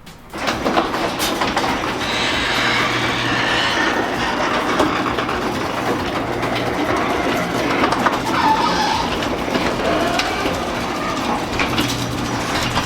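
Electric garage door opener running for about twelve seconds: a steady mechanical rattle over a motor hum, starting and stopping abruptly.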